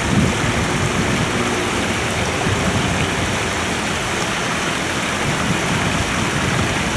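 Steady rush of water pouring down a small concrete spillway into the river, a bit noisy.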